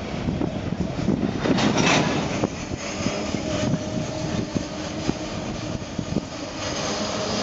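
Freight train of enclosed autorack cars rolling past at close range: a steady rumble of steel wheels on rail with scattered clicks.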